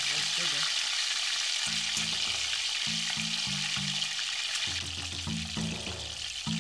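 Whole striped perch shallow-frying in hot oil in a cast-iron skillet, with a loud, steady sizzle. Soft background music with low bass notes comes in under it about two seconds in.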